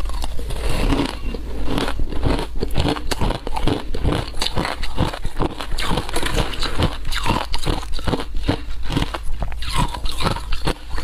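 Chunks of flavoured frozen ice bitten and crunched between the teeth, close to a lapel microphone: a dense run of crisp cracks, several a second.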